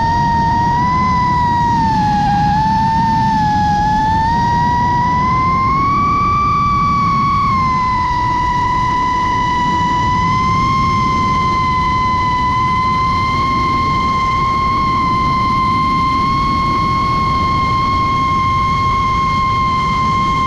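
Five-inch FPV quadcopter's motors and props whining at high speed. The pitch wavers and rises with the throttle for the first several seconds, then holds steady, over a constant rushing noise.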